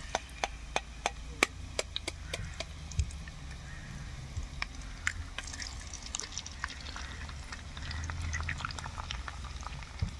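Sharp metallic clicks of a steel slotted spatula and eggs being tapped and cracked over a pan of fried bitter gourd slices. Hot oil crackles and sizzles as the raw eggs go in, over a low steady hum.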